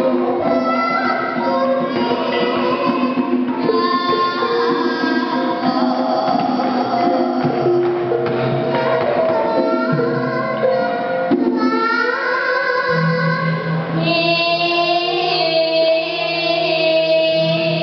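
Javanese gamelan music: a young pesindhen (female gamelan singer) sings over struck bronze metallophones, with a deep held tone entering about 13 seconds in.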